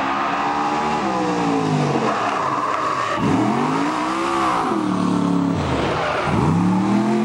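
Engine of a motorized fire drill team race cart revving hard, its pitch rising and falling several times as it speeds down the track.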